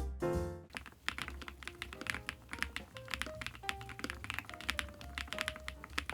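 Rapid, irregular keystroke clacks from typing on an IQUNIX ZONEX 75, a 75% aluminium gasket-mount mechanical keyboard, over quiet background music. A louder music passage fades out within the first second.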